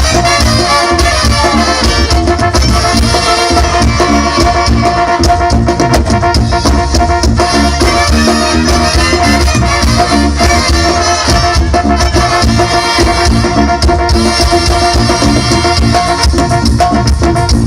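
Loud Latin music playing continuously with a steady beat.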